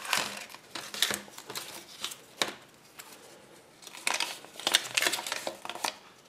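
Paper crinkling and the light clicks of small plastic pieces as a folded leaflet and toy parts are taken out of a yellow Kinder Surprise capsule, busiest about four seconds in.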